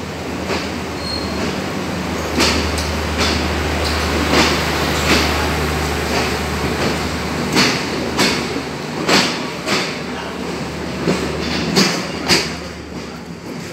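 Sri Lankan diesel intercity express train moving past along the platform: a steady low rumble and engine hum, with sharp wheel clacks over rail joints about once a second.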